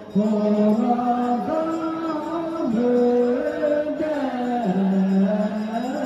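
Slow chant-like singing in long held notes that step up and down in pitch, with no break.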